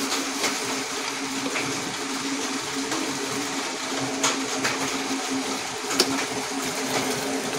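A pot of water on a gas burner boiling, with a steady hiss and a low hum, and a few sharp clinks of a steel spoon against the steel saucepan as sugar is spooned in.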